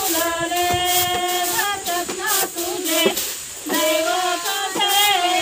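A Marathi song: a high-pitched voice sings a melody with long held notes over instrumental music.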